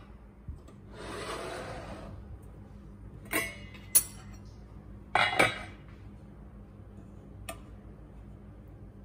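Stainless steel pot lid being handled: a soft rubbing noise about a second in, then sharp metallic clanks and clinks as the lid comes off and is set down, the loudest a few seconds in, and one faint click near the end.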